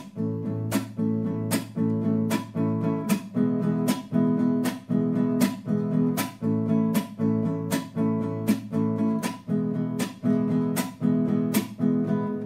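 Cutaway nylon-string classical guitar strummed in the son nica rhythm in 6/8: a sharp percussive slap on the strings, the tapa, followed by two thumb downstrokes, repeated quickly and evenly with about one slap every three-quarters of a second. The chord rings on between the slaps.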